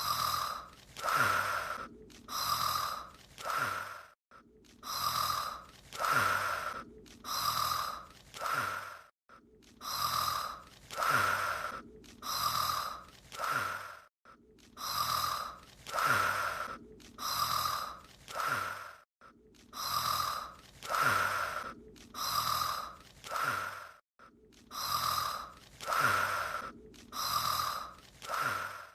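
A character's snoring from an anime soundtrack, played as a loop: a short run of breath sounds that repeats the same way about every five seconds.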